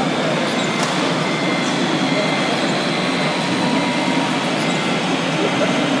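Steady, noisy hall ambience: a constant rumble and hiss with people talking in the background.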